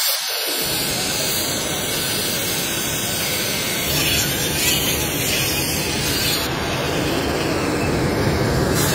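Loud, steady machine hiss and rumble of air-powered shop tools: a pneumatic disc sander working a wood-veneer trim panel, the sound shifting about four seconds in.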